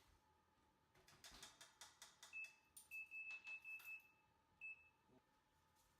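An oven's electronic control panel being set: a series of clicks as the buttons are pressed, with a short, high, steady beep answering each press, then one last beep a little later.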